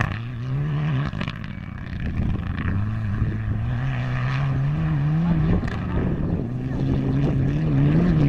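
Mitsubishi Lancer Evolution rally car's turbocharged four-cylinder engine pulling hard on a gravel stage. Its pitch climbs and drops back at each gear change, three times.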